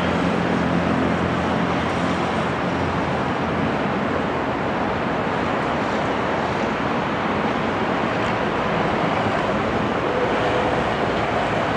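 Engine noise of a small business aircraft climbing away after takeoff: a steady rushing sound, with a low hum that fades after the first few seconds.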